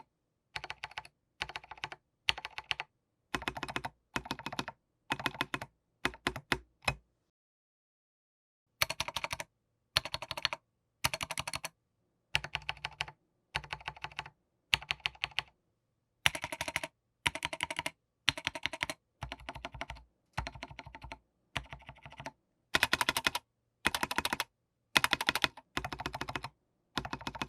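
Rama Works Kara 60% mechanical keyboard with Gateron Cap Milky Yellow switches, its keys and Durock V2-stabilized long keys pressed in short rapid bursts of clicks about once a second, with a pause of about two seconds near the first third. The owner hears a hollow sound from the case.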